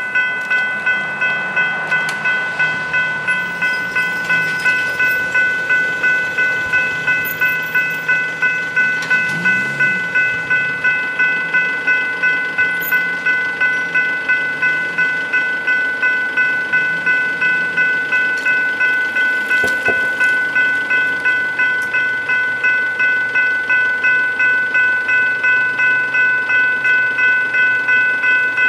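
General Signals Type 3 electronic level-crossing bells ringing, a rapid, even string of strokes on a steady tone, warning road users that a train is approaching.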